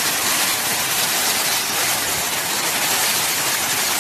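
Torrential rain driven by strong wind: a steady, dense hiss with a low, fluttering rumble underneath.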